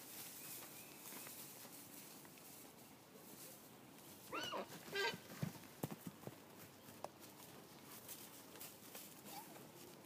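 A horse squeals twice in short, high, bending calls about halfway through, followed by a few sharp knocks, against a faint outdoor background.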